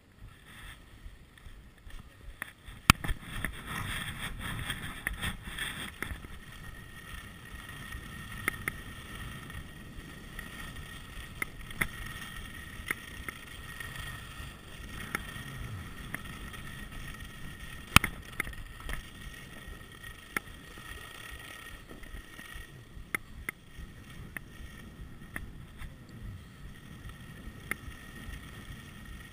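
Skis sliding and carving over groomed snow: a steady scraping hiss mixed with wind, broken by sharp clicks and knocks, the loudest about three seconds in and again about eighteen seconds in.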